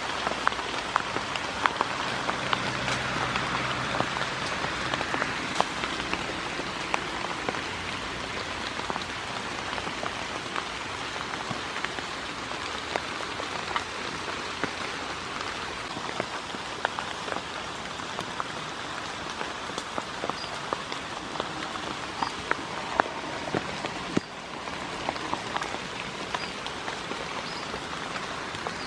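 Steady rain falling, with many separate raindrops striking close by as short sharp ticks over an even hiss.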